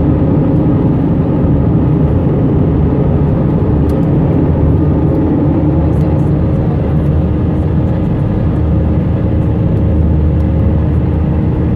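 Airbus A320 cabin noise in the climb after takeoff: the twin jet engines at climb power and the rush of air over the fuselage, a steady loud low rumble. A faint steady hum note comes in about halfway.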